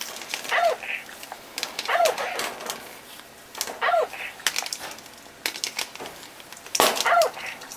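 Clicks and taps of a parrot's beak and feet on a plastic electronic toy ball, with four short bark-like calls, each dropping in pitch.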